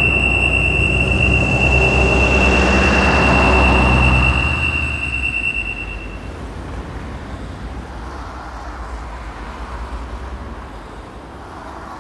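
Sound-design effect: a steady high ringing tone over a low rumble and rushing noise that swells to a peak about four seconds in. Both cut away around six seconds, leaving a quieter steady background hiss.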